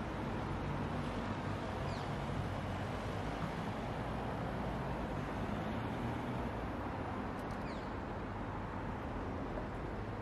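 Steady rumble of city road traffic, with faint engine hum and no single vehicle standing out. A couple of faint, short, high falling chirps are heard about two seconds in and again near the end.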